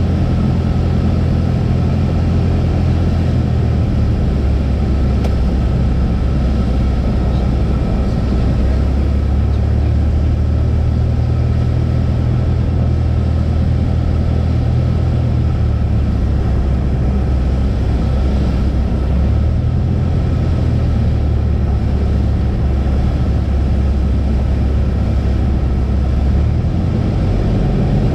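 Cessna 172's engine and propeller droning steadily, the pitch of the drone shifting slightly up and down a few times.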